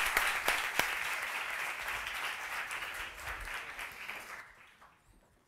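Audience applause, dense at first, thinning and fading out over about four seconds.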